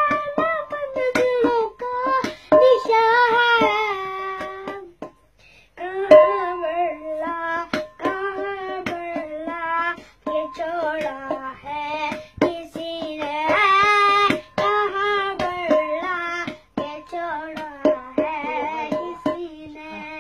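A young boy singing a song unaccompanied except for his own hand beating time on a stainless-steel pot used as a drum. The strikes fall throughout the sung phrases, with a short pause in the singing about five seconds in.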